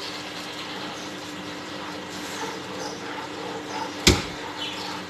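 Beetroot juice simmering in a frying pan while a plastic slotted spoon stirs and scrapes through it, with one sharp knock about four seconds in.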